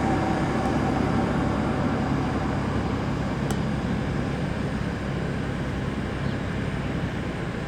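Jet engines of an Embraer E195-E2 airliner running with a steady rumble that fades slowly.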